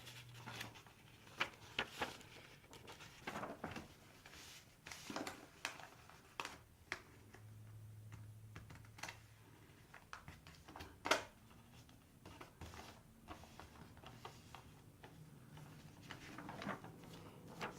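A sheet of paper being handled and folded: scattered short crinkles and light taps at irregular times as the corners are folded over and the creases pressed down.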